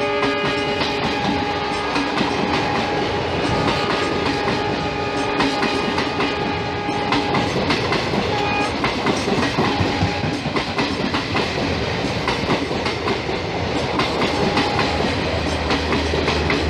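Multi-tone air horn of a WDM3A diesel locomotive sounding, strong at first and dying away after about seven seconds, over the loud clatter of passing coaches' wheels on the rails.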